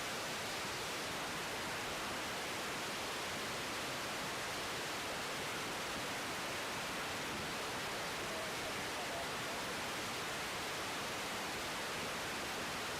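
Steady, even hiss of static on the air traffic control radio feed between transmissions.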